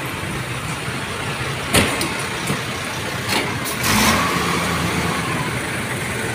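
Parked fire trucks' engines idling steadily. A sharp knock comes about two seconds in, and a louder short noise about four seconds in.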